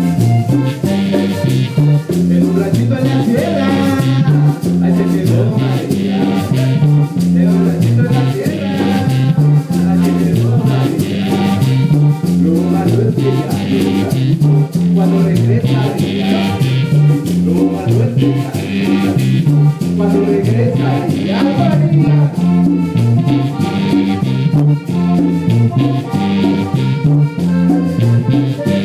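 Live band playing dance music, loud and continuous, with a repeating bass line and hand percussion.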